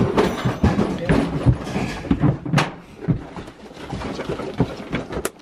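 Irregular thumps, knocks and scuffing from people moving and handling the rescued mountain goat at a shed doorway. The noise is busiest in the first half and quieter after, with two sharp clicks, one about halfway and one near the end.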